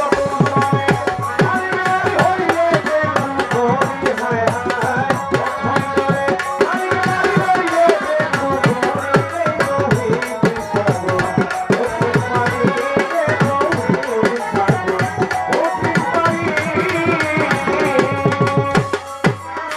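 Live Bengali pala gaan folk music: an instrumental passage with tabla-style hand drums beating a quick rhythm under a gliding melody played on violin.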